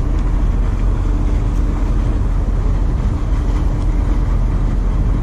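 Steady low rumble of a large moored ship's machinery, with a faint steady hum joining about a second in.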